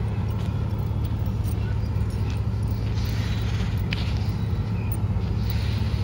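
Steady low wind rumble on the microphone, with soft crunching footsteps on sand and stone.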